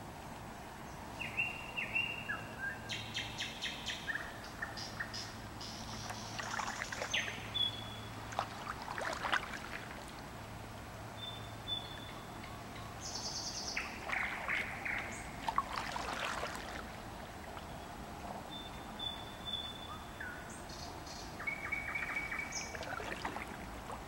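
Songbirds singing at night over water: short clear whistles and quick rapid-note trills, repeated in phrases. Twice, about a third and two thirds of the way through, a few soft water splashes and drips from the kayak paddle come in.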